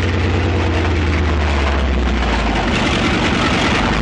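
M4 Sherman tank dozer's engine running steadily as it pushes against curved steel rails, with dense mechanical noise over it. The low engine note drops a little about two and a half seconds in.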